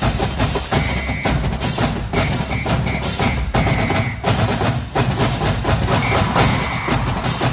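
Drum-heavy percussion music with fast, dense drumming and a strong low beat. A high held note sounds in short repeated blasts over it.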